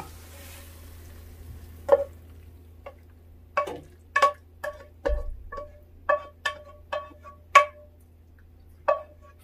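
Wooden spatula knocking and scraping against a frying pan and serving bowl as stir-fried food is pushed out of the pan: about a dozen short clinks at uneven intervals, each with a brief ring, starting about two seconds in.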